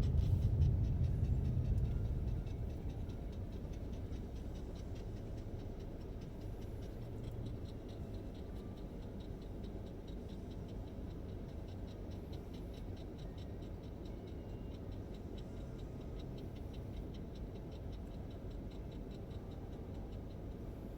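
Car's turn-signal indicator ticking steadily over a low engine hum. The road rumble fades over the first few seconds as the car slows, leaving the car idling.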